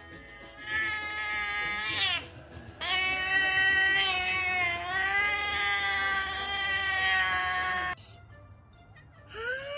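Domestic cat yowling in two long, drawn-out calls. The first ends in a falling slide about two seconds in. The second is held for about five seconds with a slightly wavering pitch and cuts off abruptly. A short meow that rises and falls starts near the end, over faint background music.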